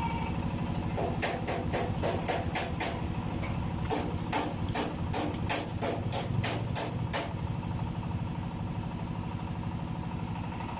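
Yamaha Mio J scooter's fuel-injected single-cylinder engine idling steadily, with two runs of rapid sharp clicks, about five a second, from about one to three seconds in and again from four to seven seconds in.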